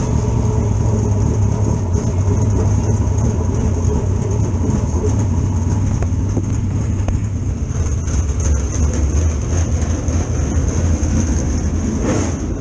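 Dirt late model race car's V8 engine running at low speed, heard from inside the cockpit: a steady low rumble with a faint steady high whine above it.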